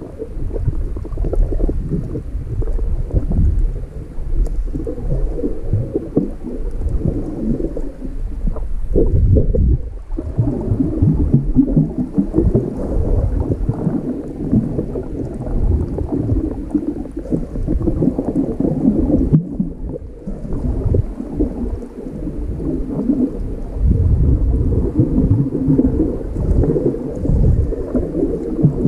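Muffled low rumbling and sloshing of water, heard from a camera held just below the surface while snorkeling, swelling and fading unevenly.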